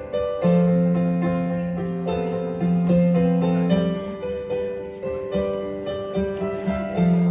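Piano playing slowly: struck chords and melody notes that ring and fade over held low bass notes, a new chord every second or so.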